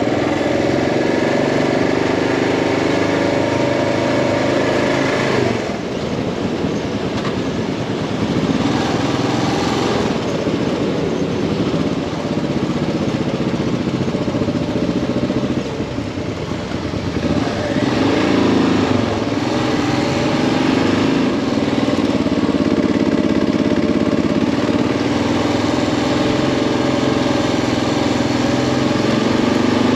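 Motorcycle engine running under way with a steady rushing noise. The engine sound drops briefly about five seconds in and again around sixteen seconds, then picks up once more.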